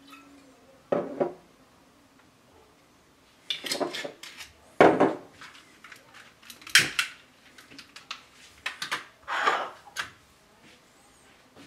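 A lighter struck over and over, about half a dozen sharp clicks and short rasping strikes, to set alight 80-proof rum poured over jam in an open glass jar. By the end a flame is burning on the rum.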